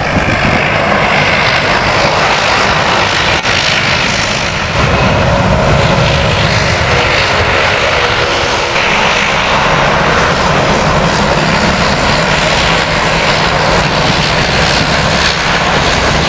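Airbus A330-243's two Rolls-Royce Trent 772B turbofans running at full takeoff thrust as the airliner rolls, lifts off and climbs away: a loud, steady jet noise that grows louder about five seconds in.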